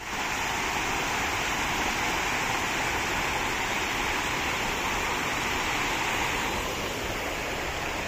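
Steady rush of a monsoon waterfall, an even roar of falling water.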